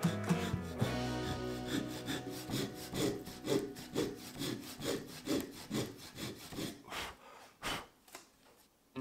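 Handsaw cutting through the end of a laminated wooden block in back-and-forth strokes, about two a second, growing fainter and stopping near the end.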